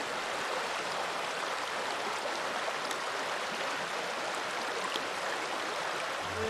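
Shallow river current rushing steadily over stones, a constant even rush.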